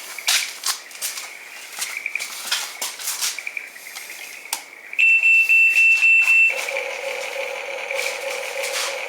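Toy construction vehicles: a few clicks and taps of plastic being handled, then about five seconds in a loud electronic beeping for a second and a half, followed by a steady pulsing electronic tone.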